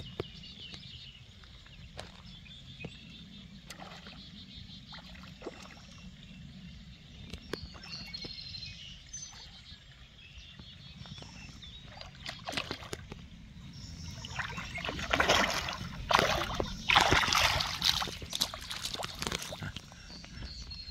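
A hooked fish thrashing and splashing at the water's surface as it is reeled in to the bank: a few seconds of loud irregular splashes starting about fifteen seconds in. Birds chirp faintly in the background.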